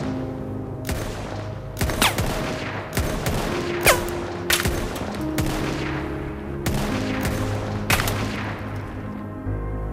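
Scattered gunshots, about nine at irregular intervals, two of them trailing a quick falling whine, over a film score of slow held notes.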